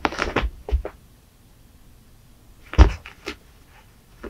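Thumps and scuffles of a cat pouncing and batting at a toy on a carpeted floor: a burst of knocks right at the start and another just under three seconds in.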